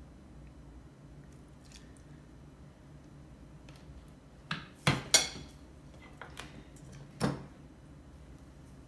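Metal tablespoon clinking against a stainless steel mixing bowl: three sharp clinks about halfway through, the last one the loudest and ringing briefly, then another clink of cutlery near the end.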